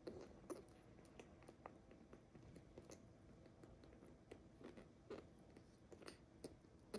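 Faint, irregular small wet clicks of a young kitten licking itself while grooming.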